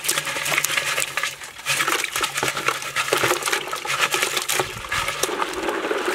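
Live crabs tumbling out of a clay pot into a plastic bucket of water: a dense, irregular run of clicks and scrapes from shells and legs on the clay and plastic, with small splashes.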